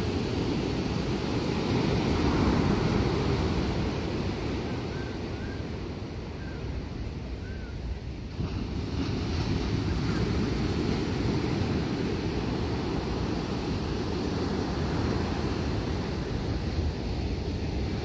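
Ocean surf breaking and washing up a sandy beach, with wind buffeting the microphone. A wave breaks louder about two seconds in.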